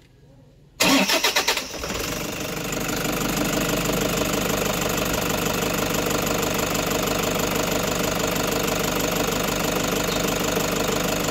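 Toyota HiAce Grandia's 1KD common-rail diesel engine started with its oil freshly dosed with F2R additive: about a second in the starter cranks it briefly, it catches within a second, and it settles into a steady idle.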